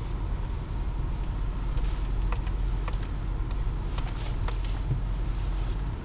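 The 6.4 litre Power Stroke turbo diesel of a 2008 Ford F-250 running low and steady, heard inside the cab as the truck drives off, with light metallic jingling clicks over it between about one and five seconds in.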